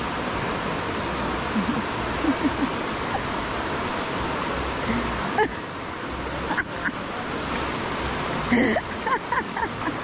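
Steady rush of a shallow stream running over rock rapids, with a few short voice calls over it.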